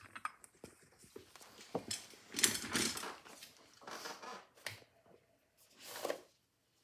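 Metal parts of a spring-driven mechanism being handled and pulled apart on a bench: a series of scrapes, rattles and clicks, the loudest about halfway through, with a last scrape near the end.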